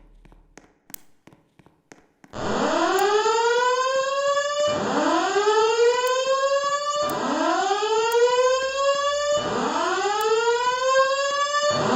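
Fire alarm evacuation speakers sounding a whoop tone: loud rising sweeps, each about two and a half seconds long, repeating one after another from about two seconds in. It is the evacuation signal that alternates with the system's recorded voice message.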